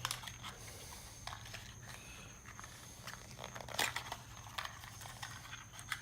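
Spark plugs and their box being handled: scattered light clicks and taps of small parts, the loudest about four seconds in, over a steady low hum.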